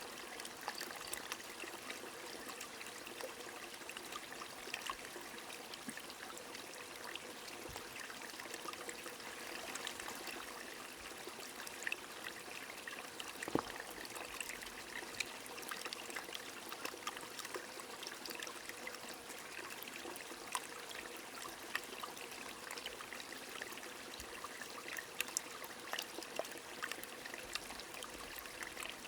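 Rain falling alongside a flowing stream: a steady rush of water with many separate drops ticking through it, one louder drop about halfway through.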